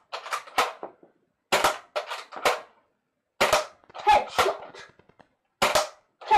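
Nerf N-Strike Elite Strongarm dart blaster fired shot after shot in normal (non-slam) mode. A group of clicks comes about every two seconds, each starting with a loud sharp snap and followed by a few quieter clicks.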